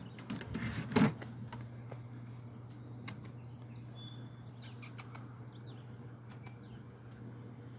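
Hummingbirds giving a few brief, high chirps as they chase each other, over a steady low hum. A short rustle comes about a second in.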